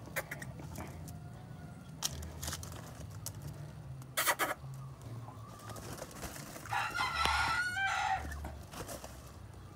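A gamecock crows once, about seven seconds in, a crow lasting about a second and a half. Before it come a few short, sharp knocks.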